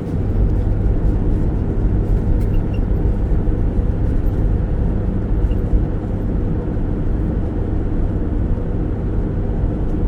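Steady low rumble of road and engine noise from a Rialta RV motorhome under way, heard from inside the cab.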